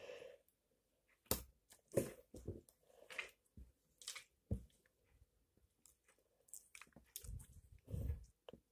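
Slime being stretched, squeezed and pressed by hand, giving faint, irregular wet clicks and pops, with a few dull thumps near the end.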